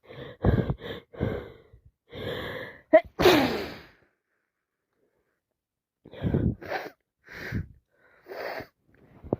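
A woman with a wet head cold catches her breath in short gasps, builds up and lets out one loud sneeze about three seconds in, then takes a few shorter breaths.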